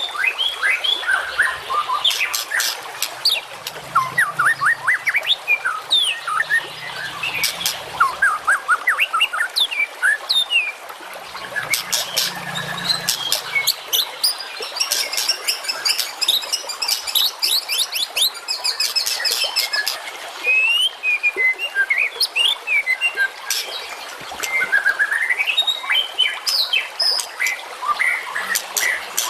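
Recorded songbird song for training contest birds: a dense, continuous run of sharp chips, quick whistled glides and fast trills, with a long rapid trill in the middle.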